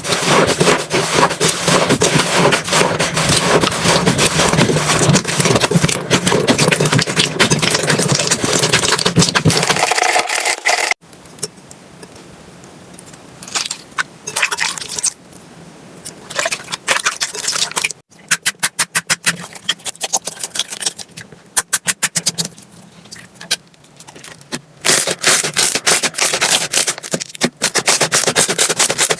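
Slime being squeezed and poked by hand, with dense crackling and clicking. After an abrupt cut about 11 seconds in it goes quieter, with quick runs of sharp, evenly spaced pops. The dense crackling returns near the end.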